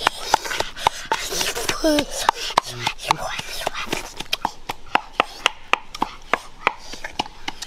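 A steady run of sharp clicks, about three a second.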